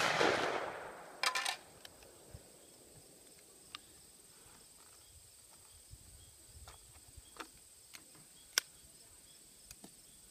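The echo of a .410 Thompson/Center Encore pistol shot rolling away across an open field, fading over about a second and a half, with a short clatter about a second in. Then quiet with scattered faint clicks, one sharper click about two-thirds through, as the single-shot break-action pistol is handled and reloaded.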